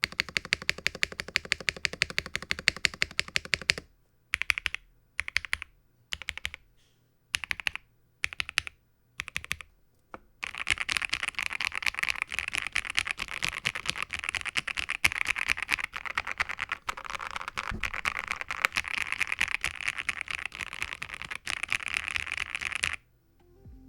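Typing test on a custom Jelly Epoch mechanical keyboard: lubed Gateron Ink-housing switches with JWICK stems, a POM plate with PE foam, and GMK keycaps. The PE foam carries much of the board's sound. Fast steady typing for about four seconds, then a few short runs of keystrokes with pauses, then a long stretch of continuous fast typing that stops just before the end.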